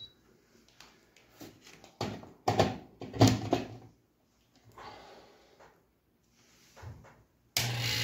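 A few handling knocks and clicks, then near the end a hermetic refrigerator compressor starts through its relay and overload and runs with a steady electric hum.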